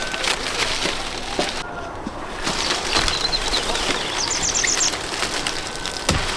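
Continuous irregular rustling noise, with a small bird singing a quick run of about six high chirps about four seconds in.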